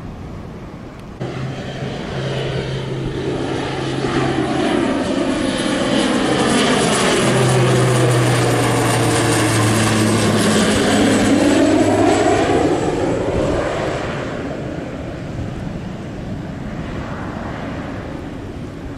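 Beechcraft Super King Air 350 twin turboprop passing low overhead on its landing approach. A propeller drone with a faint high turbine whine swells, drops in pitch as the aircraft passes, and fades.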